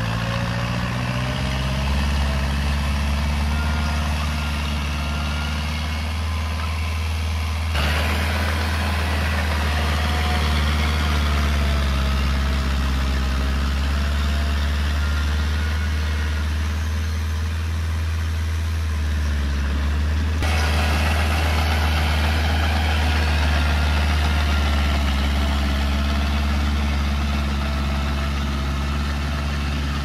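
Heavy diesel engine of earthmoving machinery running steadily. The sound turns abruptly noisier about 8 seconds in and back to a steadier engine note about 20 seconds in.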